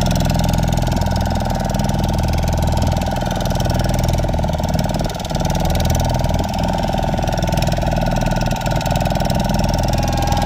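Boat engine running steadily at low speed.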